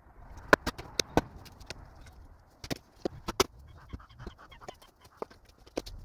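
Axe chopping branches into firewood on a wooden stump: a series of sharp, irregular knocks, the loudest in the first second and a half.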